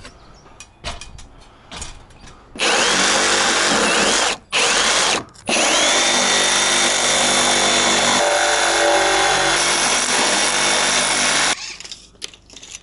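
Handheld power drill running under load into a structural insulated roof panel. It starts about two and a half seconds in, stops twice briefly, then runs steadily for about six seconds before cutting off. Its motor whine rises each time it restarts. Light knocks of handling come before it.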